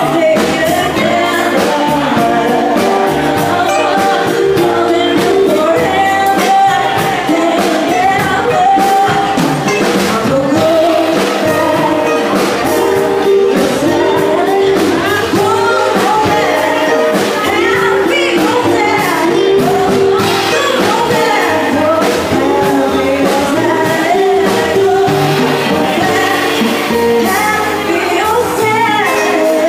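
Live band playing: a woman singing into a microphone over electric guitar and a drum kit keeping a steady beat.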